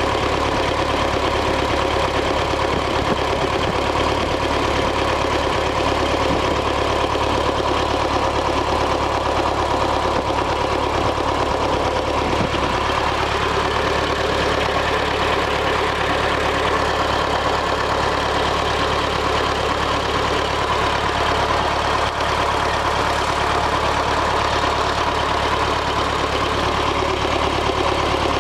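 ZIL-5301 'Bychok' truck's four-cylinder diesel idling steadily while misfiring on one cylinder: the fourth cylinder isn't firing, so the engine runs on three and shakes. The owner suspects a burnt valve or a piston fault.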